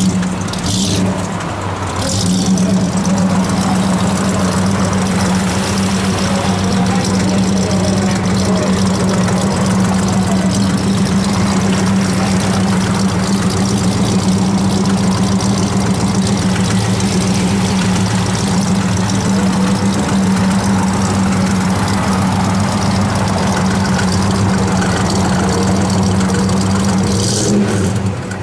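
Pontiac Trans Am's 6.6-litre V8 idling steadily through its dual exhaust, holding an even pitch without revs.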